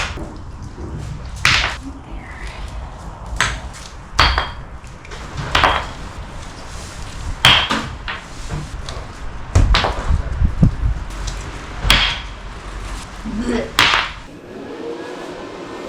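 Digging in rocky soil: a series of sharp scrapes and knocks, about one every one to two seconds, some with a brief metallic ring.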